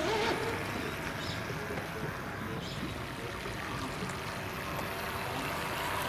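Radio-controlled model speed boat running out on a pond, heard faintly at a distance as a steady hum under a noisy wash of water and open air.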